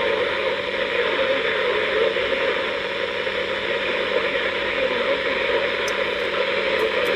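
Radio static: the steady hiss of a noisy radio signal with a low hum running under it, and a few faint ticks near the end.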